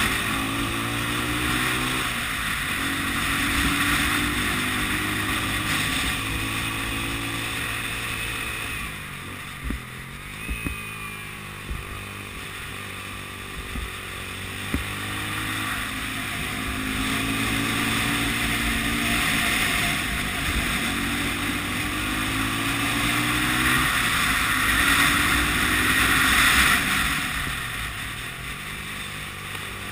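Honda CB 250 RS single-cylinder four-stroke engine under way on a twisty road, its pitch rising and falling as the throttle is rolled on and off through the bends, with wind noise on the microphone. A few short knocks come in the middle.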